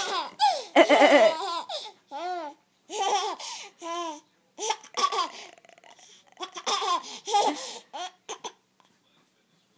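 A baby laughing in repeated high-pitched bursts of giggling, about one burst a second, falling quiet about a second and a half before the end.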